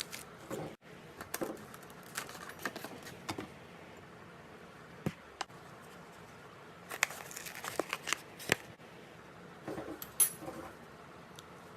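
Slime being handled, making small sticky clicks and crackles in irregular clusters, with a few sharper pops about a second in, around seven to eight and a half seconds in, and about ten seconds in.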